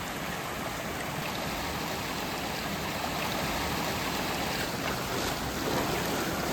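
Waterfall pouring steadily: a dense, unbroken rush of falling water.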